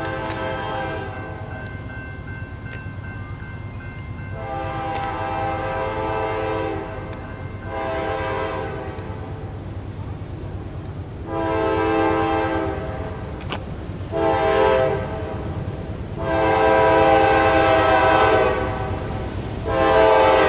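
Locomotive air horn sounding a series of blasts, mostly long with one short one, growing louder as the train nears the level crossing: the grade-crossing warning signal. A steady low rumble of the approaching train runs underneath.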